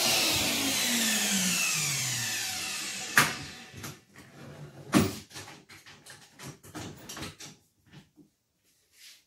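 A power tool's electric motor winding down after switch-off, its whine falling steadily in pitch and fading out over about four seconds. A sharp knock comes about three seconds in and another at five, then lighter clicks and taps of tools being handled.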